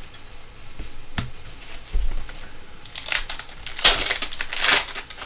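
Foil trading-card pack being torn open, its wrapper crinkling and crackling loudly for about two seconds near the end.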